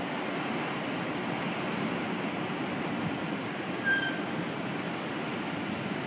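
Steady rush of heavy surf stirred up by an approaching typhoon, mixed with wind. A brief high chirp about four seconds in.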